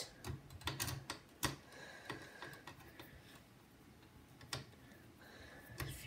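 Screwdriver turning out the screws of a desktop CPU cooler and fan assembly: faint, scattered clicks and ticks of metal tip on screw head, several in the first second and a half and one more near the end.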